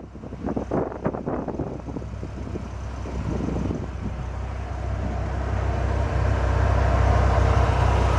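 Dodge Viper RT/10's 8.0-litre V10 idling with a steady low rumble, growing louder in the second half, with a few light knocks in the first couple of seconds.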